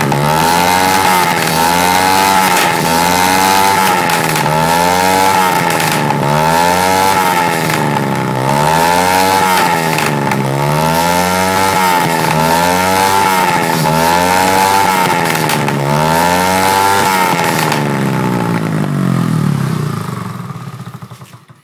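ATV engine and exhaust being revved over and over, the pitch rising and falling about once every two seconds. It winds down near the end and stops.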